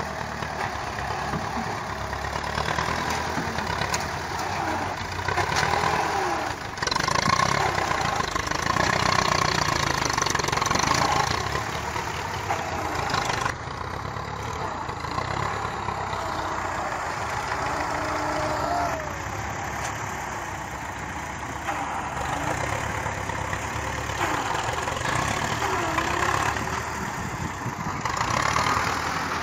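Tractor diesel engine running under load as its front-end loader works dirt, with an abrupt change in the sound about halfway through.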